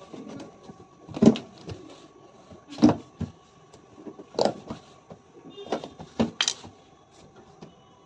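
Irregular knocks and clunks, about one every second or two, from hand work on a front-load washing machine's casing as it is put back together, over a faint steady hum.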